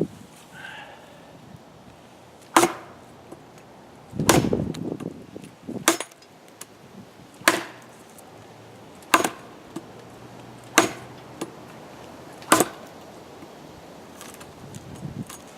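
Machete blade chopping into a piece of hard wood: about seven sharp strikes, roughly one every second and a half to two seconds. One heavier, longer thud comes about four seconds in.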